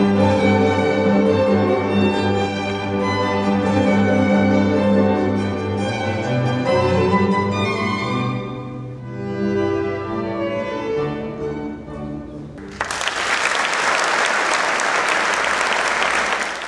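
A small string ensemble of violins and cello plays classical music, the piece ending about twelve and a half seconds in; the audience then applauds.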